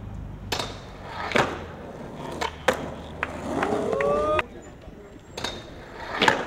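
Skateboard rolling with its wheels running, and the board clacking sharply about six times as it is popped, lands and hits the ground.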